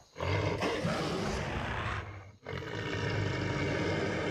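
Cartoon wolf-like beast giving two long snarls, each about two seconds, with a brief break between.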